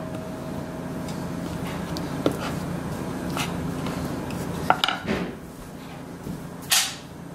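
Wooden spoon pressing and smoothing cookie dough on a wooden cutting board: soft scraping with small scattered knocks. There are a couple of sharper knocks about five seconds in and a short, louder clatter near the end.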